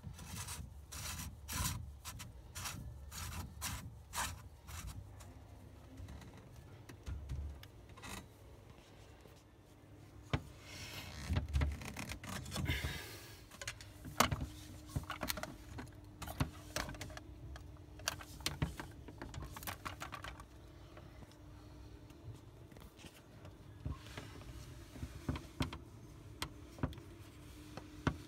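Hands working the plastic screw-on lid and housing of an Adey MagnaClean Professional central heating filter: irregular clicks, knocks and rubbing as the lid is refitted. A faint steady hum comes in about halfway.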